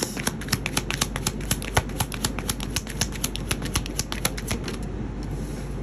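A tarot deck being shuffled by hand: a fast run of card clicks, several a second, that stops about three-quarters of the way through.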